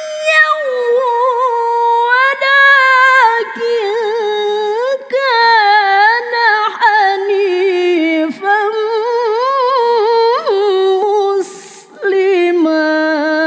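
A woman reciting the Quran in the melodic tilawah style, holding long, ornamented notes with quavering runs. The phrase breaks briefly about eleven and a half seconds in, then resumes on a lower sustained note.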